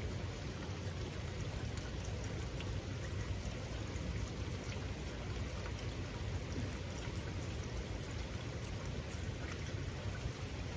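Steady rain falling, a continuous wash with scattered fine drop ticks.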